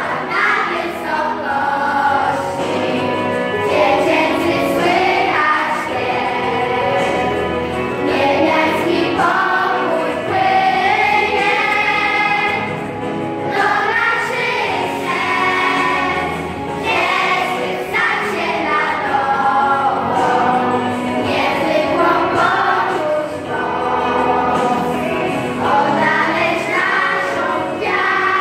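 A choir singing a Christmas carol.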